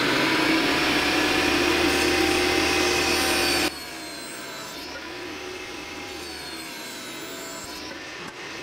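Benchtop table saw running at speed during a rip cut in a pine board, a steady motor whine. A little under four seconds in, the sound drops abruptly to a quieter, steady run with a slightly wavering whine.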